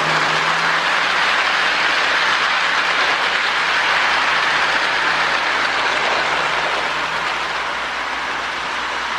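Lionel MPC-era U-boat toy diesel locomotive running on O gauge track, pulling a long train of Marx log cars: a steady motor hum under the whir of gears and the rattle of wheels on the rails, easing off a little near the end.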